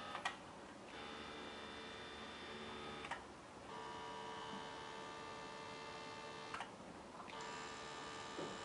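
Stepper motors of a CNC3018-type drilling machine whining as the axes are jogged. The whine comes in three runs of two to three seconds, each ending in a short click and a brief pause.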